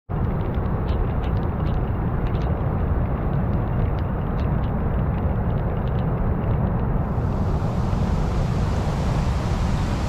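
Wind buffeting the microphone with a heavy, low, steady noise over the rush of a storm-swollen river. Faint scattered ticks sound in the first several seconds, and a brighter hiss fills in about seven seconds in.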